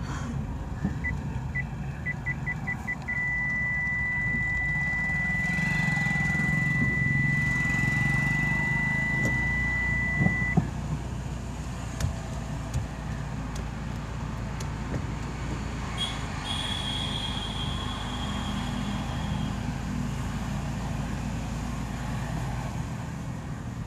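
Maruti Suzuki Baleno's reverse parking sensor beeping. The beeps come faster from about a second in and merge into one unbroken tone about three seconds in, which holds until about ten seconds: the car is reversing close to an obstacle. The engine runs low underneath, and a second, higher steady tone sounds for about three seconds later on.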